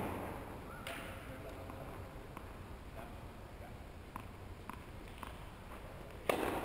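Tennis ball struck hard by a racket about a second in, then a few light bounces of a ball about half a second apart, and another sharp racket hit near the end.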